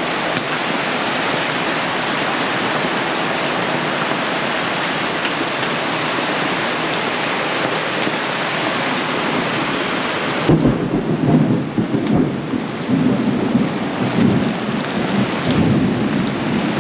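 Heavy rain and centimetre-sized hail pelting down on and around a sailboat's canvas canopy in a thunderstorm, a dense steady hiss. About ten seconds in, the hiss thins and a low, uneven rumble of thunder rolls on to the end.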